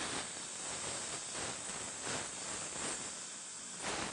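Steady hiss of a dental surgical suction running in the patient's mouth.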